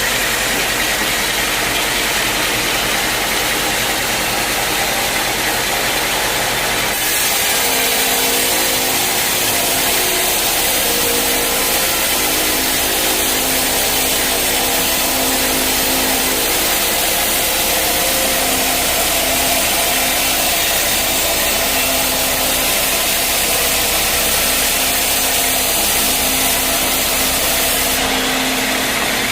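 Sawmill blade cutting through a teak log over a steadily running motor. The sound gets louder about seven seconds in as the cut takes hold and eases back near the end.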